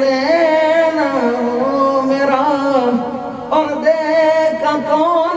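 A man singing long, wavering held notes without clear words, in Punjabi folk style; a new phrase begins about three and a half seconds in.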